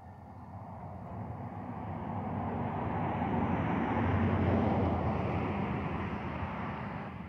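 A road vehicle driving past: engine and tyre noise swell to a peak about four seconds in, then fade away.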